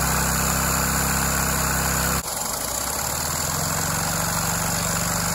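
LEGO vacuum engine running steadily on vacuum-cleaner suction while driving a Power Functions motor as a generator under load, with a steady mechanical drone. The sound dips suddenly about two seconds in, then carries on.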